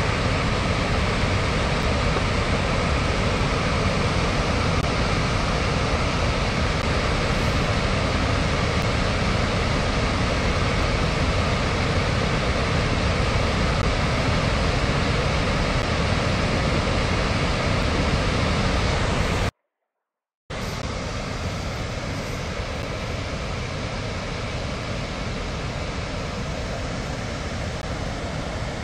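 Water rushing through the open spillway gates of Wolf Creek Dam during a high release of about 58,730 cubic feet per second, a steady heavy rushing noise. It cuts out for about a second roughly two-thirds of the way through, then resumes a little quieter.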